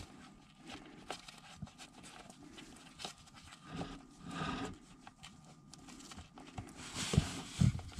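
Faint scattered clicks and light knocks of a plastic bolt cover being worked onto a floor bolt at the base of a Thetford RV toilet, with brief rustles midway and near the end.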